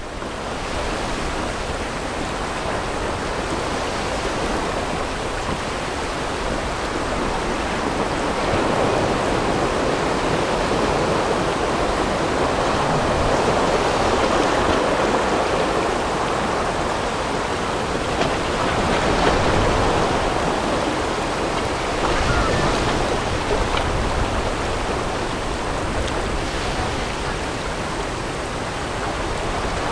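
River whitewater rushing over rapids, a steady noise of moving water heard from a raft in the current, growing a little louder about eight seconds in.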